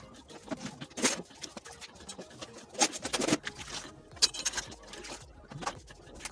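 Irregular small knocks, rustles and patter of kitchen cleaning at a steel sink, as a wet dishcloth is handled and wrung out.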